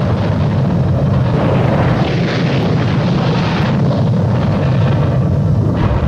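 Wind buffeting the microphone over a steady low rumble, swelling and easing every second or two.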